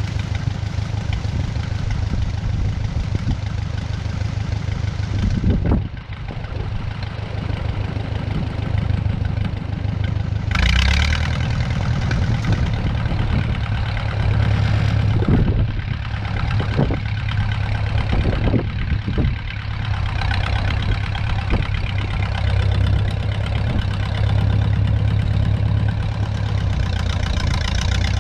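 1956 Case 411 gasoline tractor engine running, the throttle rising and falling as the tractor works its loader, with a swell in engine sound about ten seconds in. A few short knocks or clunks come through in the middle.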